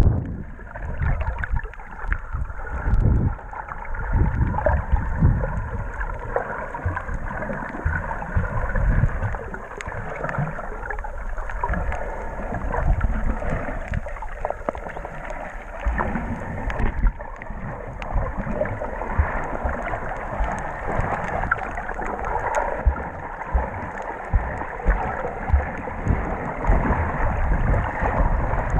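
Muffled, churning water noise recorded by a camera held underwater, with irregular low thumps and faint clicks throughout.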